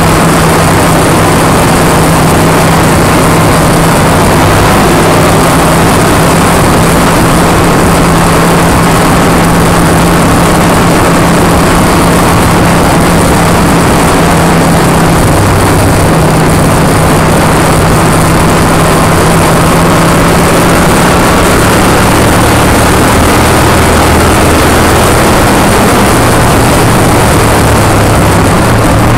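V-twin motorcycle engine running steadily at road speed, heard from the moving bike with heavy wind rush over the microphone. The engine note shifts in pitch about two-thirds of the way through.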